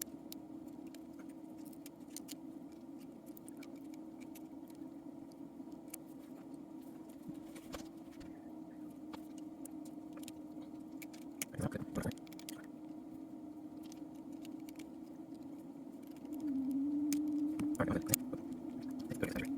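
Light metal clicks and scratches of tiny lock pins and springs being handled while a padlock is reassembled, in scattered clusters. Under them runs a steady low hum, which grows louder a few seconds before the end.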